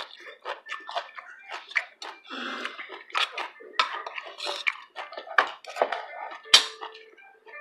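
Eating sounds up close: chewing and lip-smacking, with a spoon clinking against ceramic bowls, one sharp clink about six and a half seconds in.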